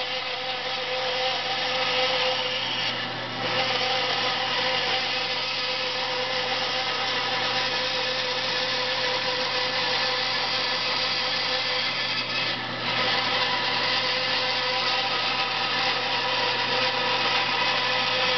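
INCA bandsaw running steadily and cutting through a turned wooden canoe blank, with two brief dips in the sound as the cut eases.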